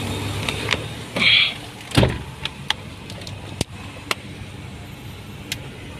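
Honda car door pulled shut from inside, closing with one loud thump about two seconds in, over a steady low hum that drops away soon after; a few light clicks follow.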